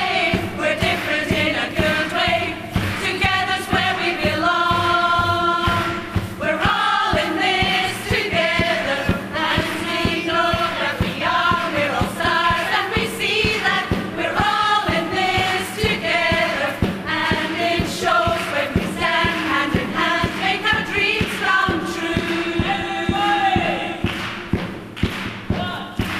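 Amateur women's choir singing in full voice, with a steady beat running underneath.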